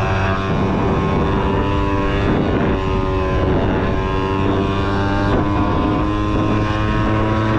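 Honda Topic 50cc two-stroke scooter engine running steadily under way, heard from the rider's seat, its pitch holding nearly even with small dips and rises.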